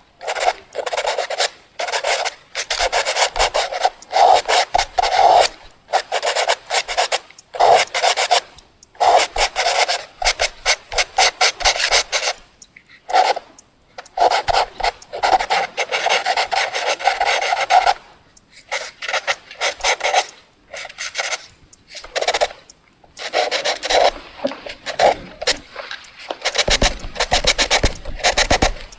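Pencil scratching across paper in irregular bursts of strokes and scribbles, with short pauses between them.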